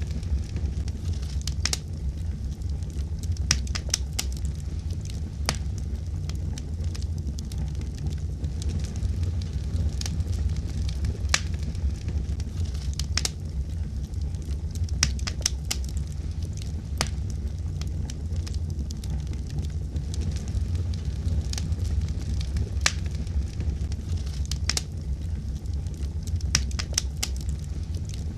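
A wood fire burning, with sharp crackles and pops coming irregularly over a steady low rumble.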